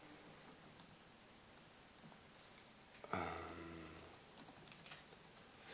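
Faint typing on a laptop keyboard, scattered keystrokes as terminal commands are entered, with a short low hum about three seconds in.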